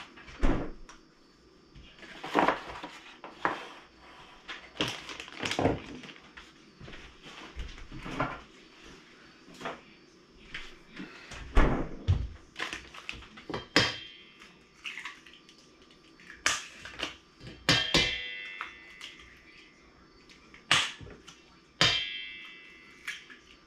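Eggs being knocked and cracked against the rim of a stainless steel mixing bowl: a series of separate sharp taps and clicks, some leaving the metal bowl ringing briefly, with quieter handling sounds in between.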